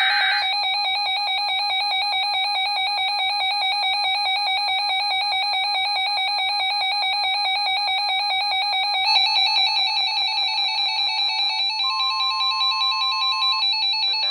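Two RadioShack weather radios (12-254 and 12-257) sounding their electronic alert alarms, a loud, rapidly pulsing beep set off by a National Weather Service severe thunderstorm warning. About nine seconds in the pattern changes as a second alarm rhythm joins. A faint steady tone, the weather radio's warning alarm tone, is heard briefly near the end.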